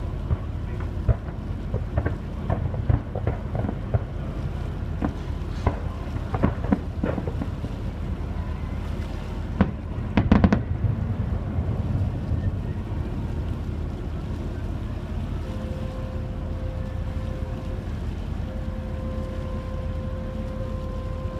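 Distant fireworks going off across open water: scattered pops and booms, with the loudest cluster about ten seconds in. Under them runs the steady low rumble of the ferry, with wind on the microphone. In the last few seconds a faint steady tone comes in.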